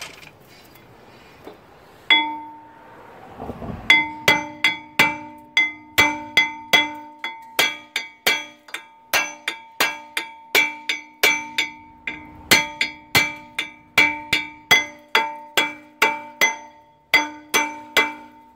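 Claw hammer striking the old cast-iron front brake rotor of a 2014 Acura MDX, which is rust-welded to the hub. Each blow makes the rotor ring with a clear metallic tone. There is one blow about two seconds in, then a long run of steady blows, about two and a half a second, until near the end.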